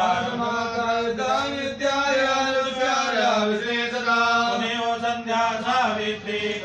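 Hindu priests chanting Sanskrit mantras in a continuous, sing-song recitation, the voices holding a steady pitch with melodic rises and falls.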